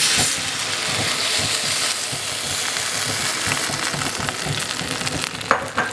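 Shrimp frying in a hot skillet as sauce is poured in: a sharp flare of sizzling as the sauce hits the pan, then a steady sizzle that slowly eases.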